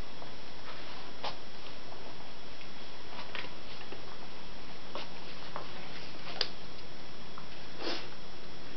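A cat rummaging with its head inside a pet-food bag: scattered short crinkles and clicks of the bag, the sharpest about six and a half seconds in and another near the end, over a steady hiss.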